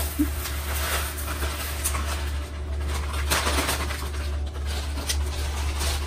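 Dry long-grain brown rice poured from a plastic bag into a clear plastic storage container: a hiss of grains, strongest in the first second, with scattered clicks and rattles as the bag and container are handled.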